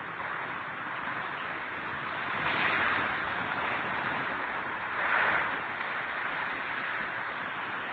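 Typhoon wind rushing steadily and swelling in two louder gusts, about two seconds apart.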